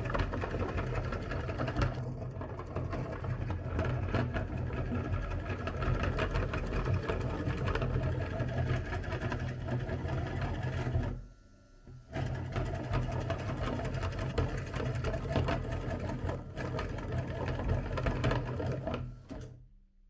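Electric meat grinder running as it grinds bars of soap. It cuts out briefly a little past halfway, starts again, and stops just before the end.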